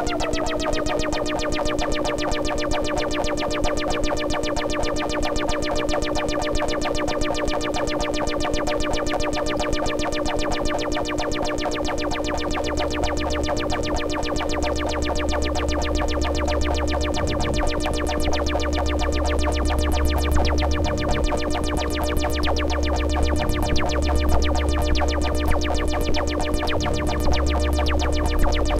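Droning instrumental background music: sustained steady tones, with one pitch sliding down at the start and a deep bass drone coming in about halfway through.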